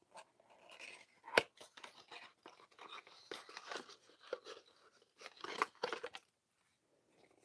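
Faint crinkling and clicking of a plastic blister pack on a cardboard backing card being handled, with one sharper click about a second and a half in.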